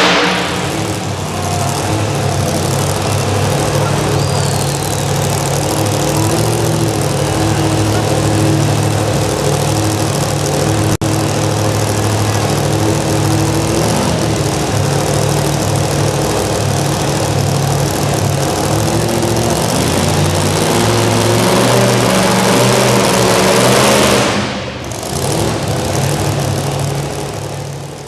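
Supercharged engine of a Willys super modified 2WD pulling truck idling steadily at low revs once its pull has ended, with a brief drop in level near the end.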